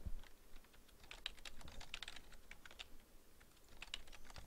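Computer keyboard keys clicking faintly in a quick run of keystrokes as a password is typed, with a brief pause about three seconds in.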